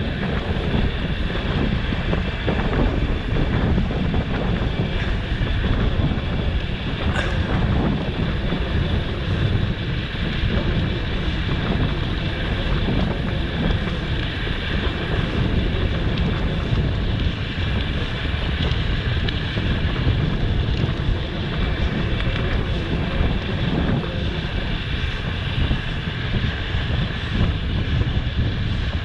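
Wind rushing over a handheld action camera's microphone carried on a moving bicycle: a steady, loud low rumble.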